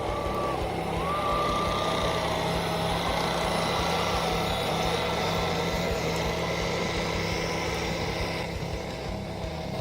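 Kubota L39 tractor loader's diesel engine running steadily under load while it digs, with a high whine that drops out briefly and returns in the first two seconds.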